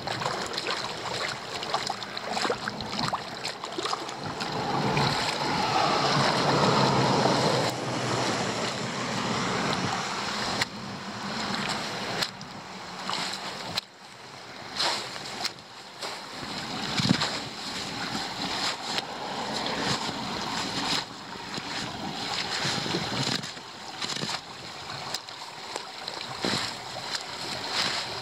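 Standing floodwater splashing and rushing into a roadside drain choked with fallen leaves, with a continuous wash that swells for a few seconds and irregular knocks throughout.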